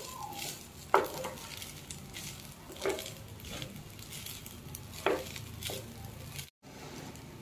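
Wooden spatula stirring and tossing cooked rice in a nonstick kadai, over a faint sizzle of ghee, with a few sharp knocks of the spatula against the pan.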